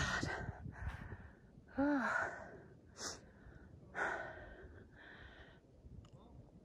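A person breathing hard from exertion: several heavy breaths about a second apart, with a short voiced grunt about two seconds in.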